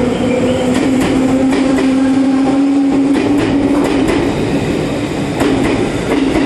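Recorded sound of a real electric train running: a steady motor hum that rises slightly in pitch, with irregular clicks of the wheels over rail joints.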